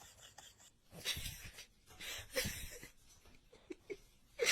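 A dog giving two short breathy huffs, about a second and a half apart.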